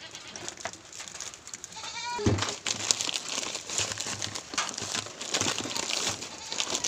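A goat bleats briefly about two seconds in. Then the plastic parcel bag and the plastic-wrapped packs of wet wipes crinkle and rustle as hands pull the packs out.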